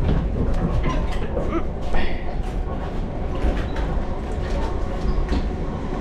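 Passenger train running, heard from inside the carriage: a steady low rumble with frequent short clicks and rattles.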